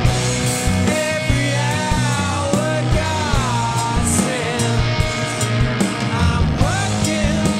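Rock band playing: drums and bass under a lead line that bends and slides in pitch.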